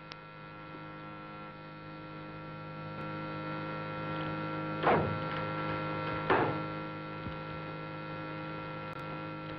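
Concrete compression testing machine humming steadily and growing louder as it loads a concrete test specimen. Two sharp cracks come about five and six and a half seconds in as the specimen fails under the pressure.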